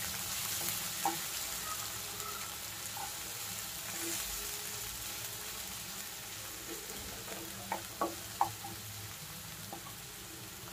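Chopped onions sizzling in hot mustard oil in a non-stick kadhai with a steady hiss. A wooden spatula stirs them, knocking and scraping against the pan a few times, mostly in the second half.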